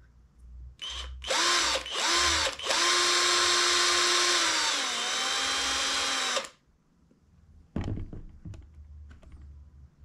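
Cordless drill motor whining as a 1.5 mm bit widens the nozzle hole of an alcohol stove burner: three short trigger pulls, then a steady run of about four seconds that drops in pitch partway through and stops. A few light clicks and knocks follow near the end.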